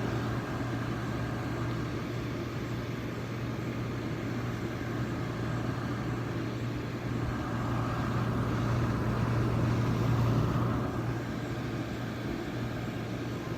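Zenith (LG-made) 6,500 BTU window air conditioner running with its fan and compressor on: a steady hum under the fan's air noise. The owner believes its refrigerant leaked out when it fell, so it barely cools.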